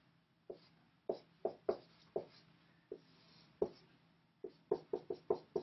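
Dry-erase marker drawing on a whiteboard: about a dozen short, sharp strokes, spaced unevenly at first and coming quickly one after another near the end.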